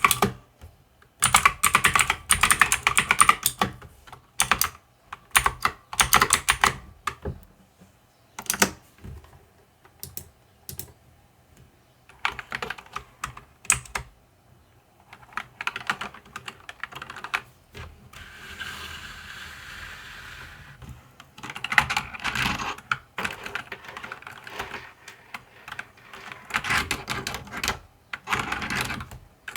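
Mechanical keyboard being typed on in quick bursts of clicking keystrokes with short pauses between runs. Near the middle, a steady hiss lasts about three seconds.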